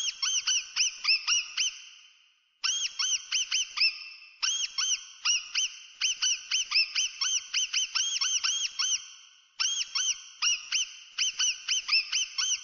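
Mouse squeaking sound effect: runs of quick, high-pitched squeaks, about five a second, each rising and then falling in pitch, broken by a brief pause about two and a half seconds in and another about three quarters of the way through.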